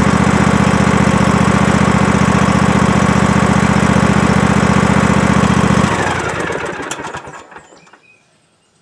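Husqvarna riding lawn mower's engine running steadily, then stopping about six seconds in, winding down to quiet over a second or two.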